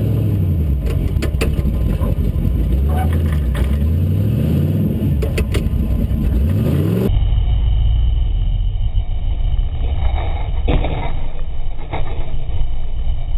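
Early Ford Bronco's engine heard from inside the cab, revving up and down as it crawls along a rough trail. About seven seconds in the sound changes abruptly to a steadier low engine drone with a few knocks and bangs.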